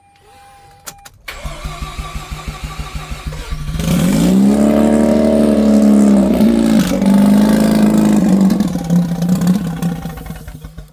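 Mazda RX-8's two-rotor rotary engine being cranked over by the starter for a couple of seconds, catching about four seconds in, revving up and falling back, then running fast before the sound cuts off suddenly at the end.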